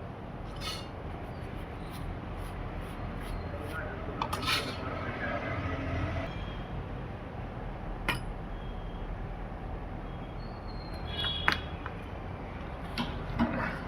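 Small hand tools clicking and tapping a few times on a phone repair bench over a steady background hum.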